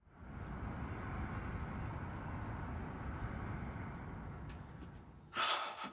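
Steady low ambient rumble, fading away about five seconds in. It is followed near the end by a short, louder breathy rush of noise.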